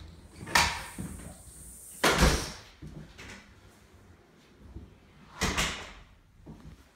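Interior doors being handled in an empty room: three short bumps, each with a brushing rush, spaced a few seconds apart.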